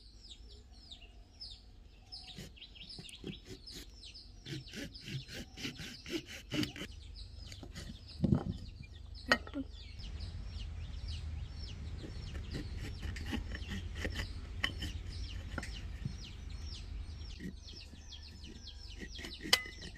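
Birds chirping over and over in short falling chirps, over a steady low rumble. A few sharp knocks, the loudest about eight seconds in and another a second later, as a knife cuts through a guava onto a ceramic plate.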